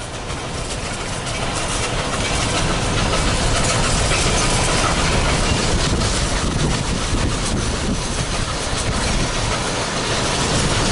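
Steady rushing noise of Nickel Plate Road 765, a 2-8-4 Berkshire steam locomotive, and its passenger train running past, mixed with wind on the microphone from a moving car. It grows louder about a second in.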